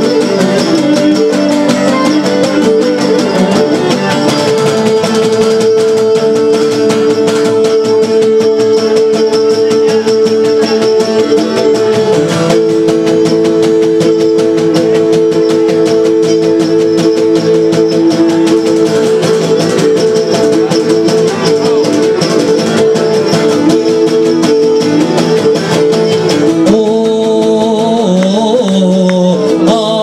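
Cretan lyra bowing a melody over two Cretan lutes (laouta) strumming and picking, an instrumental passage of traditional Cretan music between sung verses.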